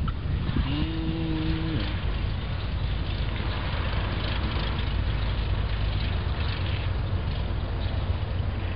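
A Cessna 172SP's engine and propeller drone steadily as the plane runs along the runway, heard from the field beside it. During the first two seconds a short drawn-out low call sits over the drone.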